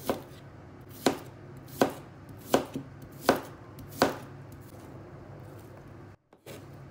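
Chef's knife chopping a red onion on a cutting board: six sharp strikes of the blade on the board, about one every three-quarters of a second, stopping about four seconds in.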